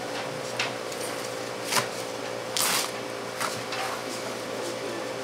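Light, scattered knocks and clatter of a knife, cutting board and dishes being handled during tuna sashimi preparation, with a brief scrape a little past halfway, over a steady hum.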